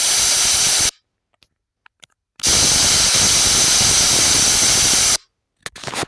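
Two loud bursts of steady hissing noise that start and stop abruptly, the second about three seconds long, with a few faint clicks in the gaps.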